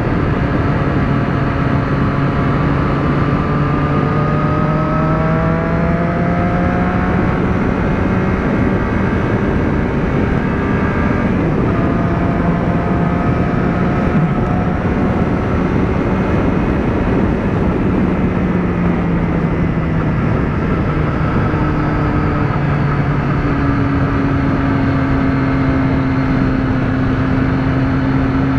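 Motorcycle engine running at highway speed under a heavy rush of wind over the microphone. The engine note rises over the first seven seconds or so as the bike accelerates, holds steady, then drops lower after about twenty seconds as it slows.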